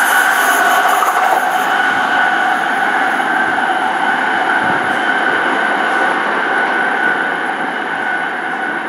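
SNCB HLE 13 electric locomotive hauling an intercity train on the approach: steady rolling rail noise with a steady high whine over it. A fast, faint high clicking stops about a second and a half in.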